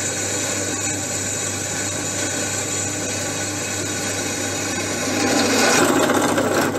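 Electric drill running a freshly hand-sharpened twist bit through soft steel plate, with a steady motor hum under the cutting noise as the bit peels off long curls of swarf. The cutting gets louder near the end as the bit breaks through the plate.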